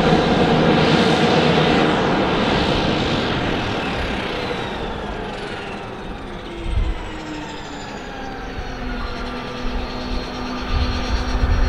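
Pilatus PC-21's Pratt & Whitney PT6A turboprop shutting down: its whine slides down in pitch and fades as the five-blade propeller winds down. There is one low thud about seven seconds in, and an irregular low rumble near the end.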